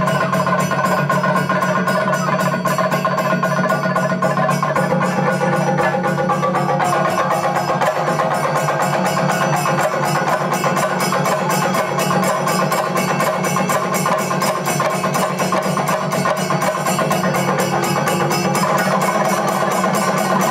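Chenda drums beaten fast with sticks, with ilathalam hand cymbals clashing in a steady, dense rhythm. This is Kerala temple percussion (chenda melam), running without a break.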